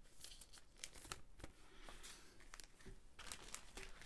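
Faint crinkling and light clicks of trading cards being handled.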